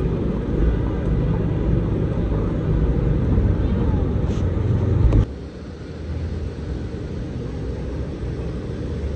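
City street sound: a low, steady traffic rumble with voices of passers-by. The rumble drops away suddenly about five seconds in and carries on more quietly.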